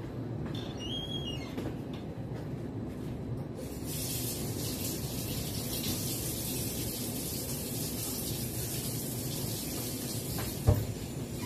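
Kitchen tap turned on about four seconds in, water running steadily into a stainless-steel sink. A single sharp knock near the end.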